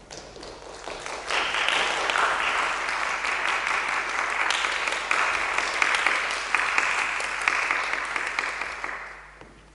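Audience applauding in a concert hall. The clapping swells over the first second or so, holds steady, and dies away near the end.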